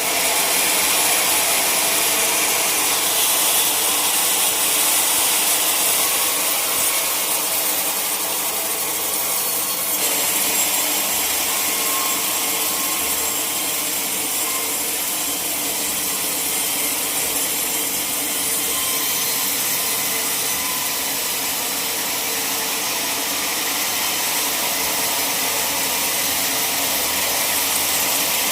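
Sawmill saw cutting through a log, a steady, loud hiss of the blade in the wood that shifts slightly in tone about three seconds in and again about ten seconds in.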